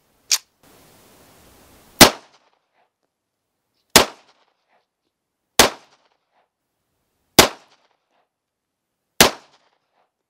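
Five .45 ACP shots from an Armscor-made nickel-plated Cimarron 1911 pistol, fired slowly, one about every two seconds, each with a short echo.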